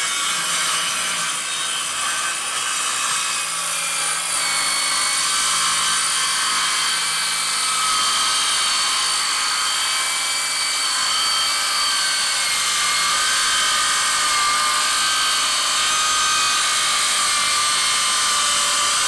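Hart 6½-inch cordless circular saw ripping lengthwise through a wooden board under steady load, motor whining and blade cutting without stalling. The whine rises slightly near the end as the blade nears the end of the cut.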